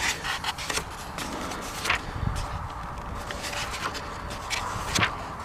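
Pages of a paper manual being turned: a few sharp paper rustles, one right at the start, one about two seconds in and one near the end, over a low rumble.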